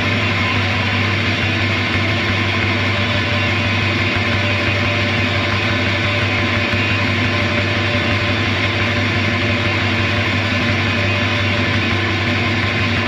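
A steady droning wall of distorted electric guitar noise and feedback from a post-hardcore rock band, held without drums or beat.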